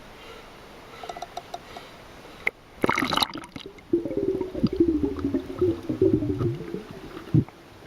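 Sea water splashing and gurgling. A short loud splash comes about three seconds in, followed by a few seconds of irregular sloshing and gurgling that stops suddenly near the end.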